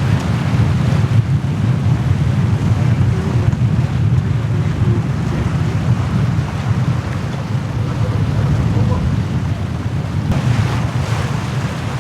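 Strong wind buffeting the microphone over water rushing past the hull of a VO65 racing yacht under sail, a steady heavy rumble that grows fuller and hissier near the end.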